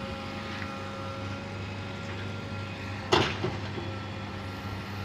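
JCB 3DX backhoe loader's diesel engine running steadily while the backhoe bucket digs into a pile of soil. A single sharp knock about three seconds in is the loudest sound.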